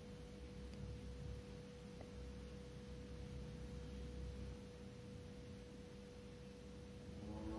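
Faint steady hum: a single pure tone held throughout over a low rumble of room tone.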